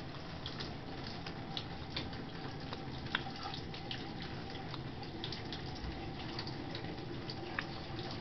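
Water in a bathtub as a wet Boston terrier puppy is lathered and scrubbed by hand: many small drips and splashes over a steady wash of noise.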